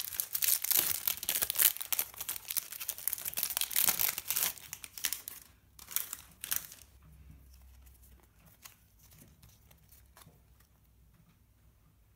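Foil Panini Adrenalyn XL trading-card packet being torn open and crinkled, a dense crackling for about five and a half seconds with one more short burst a second later. After that only faint ticks as the cards are handled.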